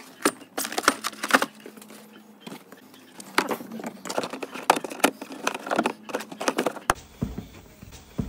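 Plastic trunk trim covers and stowed items being handled and fitted back into place: irregular clicks, knocks and rustling.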